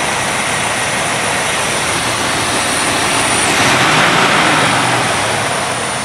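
1963–64 Cadillac V8 engine idling with the hood up, running pretty smooth; the sound swells slightly in the middle.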